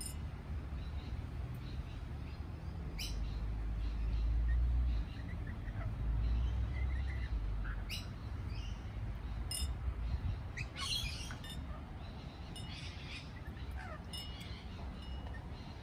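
Lorikeets giving short, sharp chirps and screeches at irregular intervals, with a dense cluster of calls a little past the middle. Under them runs a steady low rumble.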